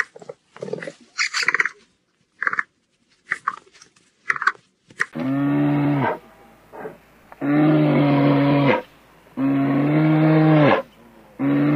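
A run of short, sharp sounds, then from about five seconds in a large animal's long, low, steady calls: three of about a second or more each, with gaps of about a second, and a fourth starting right at the end.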